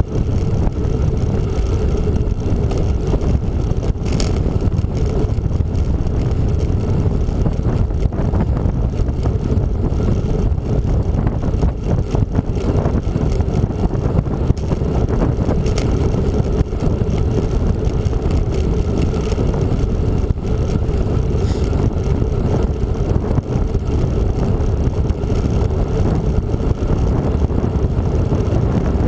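Wind buffeting the microphone of a handlebar-mounted camera on a moving bicycle: a steady, loud rumble of wind noise.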